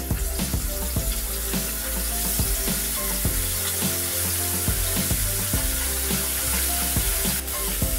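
Chicken wings deep-frying in hot oil: a steady sizzle and bubbling as more wings are lowered into the pan.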